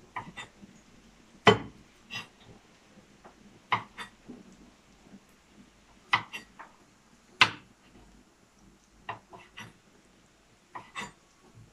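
Kitchen knife slicing green chillies on a cutting board: single sharp taps of the blade on the board at uneven intervals, sometimes two or three close together.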